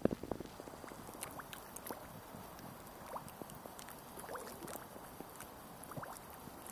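Small waves lapping against a concrete embankment wall: faint, irregular gurgles and little clicking splashes.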